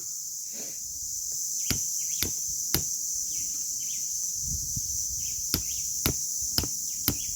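Steady high-pitched insect chorus, with sharp knocks in two runs, three and then four, about two a second.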